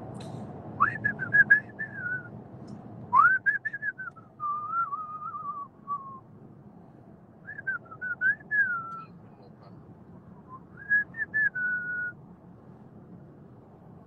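A man whistling a tune in four short phrases, over the steady low hum of a car cabin's road noise.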